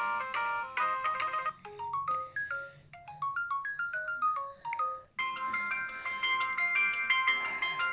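Samsung phone ringtones played one after another: a busy chiming melody that stops about one and a half seconds in, a sparser tune of single short notes, then another bright, busy chiming ringtone from about five seconds in.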